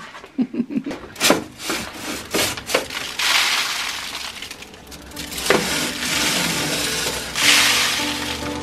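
A wire chimney-sweep brush on a rod scraping and knocking inside a Rayburn stove's metal flue pipe as it is swept of soot: several sharp knocks at first, then longer rasping scrapes. Background music comes in about halfway.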